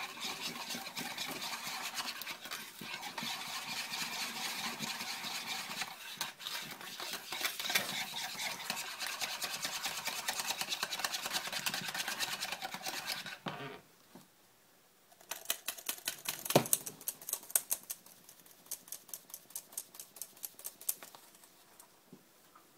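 Wire balloon whisk beating a thin batter in a plastic mixing bowl: fast, continuous scraping strokes against the bowl for about thirteen seconds. After a short pause comes a run of sharp clicks and taps.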